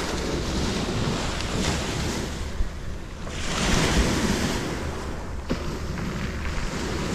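Small sea waves breaking and washing up a pebble beach, one wave swelling to a louder hiss about halfway through. Wind rumbles on the microphone throughout.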